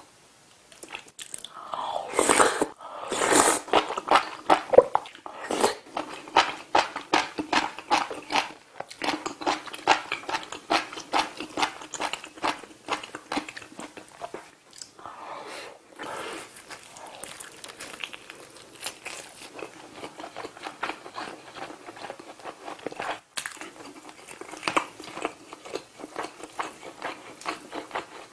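Close-miked eating: noodles slurped from soft tofu stew about two seconds in, then steady chewing and wet mouth clicks as rice and grilled saury are eaten.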